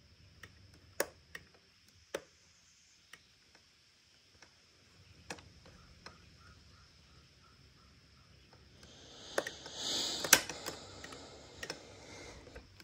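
Scattered light clicks and taps, then a few seconds of rustling, clattering handling noise with sharper knocks, starting about nine seconds in.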